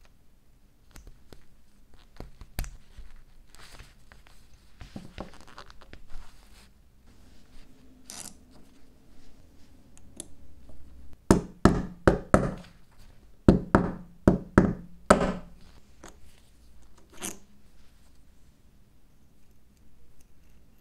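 Blowtorch valve parts (steel spindle, brass nut and knurled knob) being handled and fitted together by gloved hands: scattered light clicks and taps. Partway through comes a quick run of about nine sharper, louder clicks.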